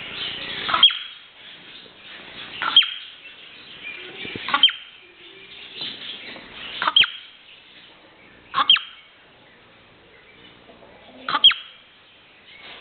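Marmot screeching six times, each call a brief piercing whistle that drops sharply in pitch, spaced about two to three seconds apart.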